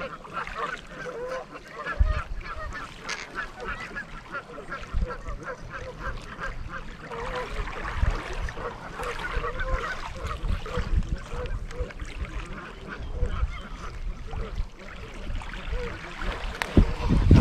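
Geese honking over and over, with wind gusting on the microphone and a louder bump near the end.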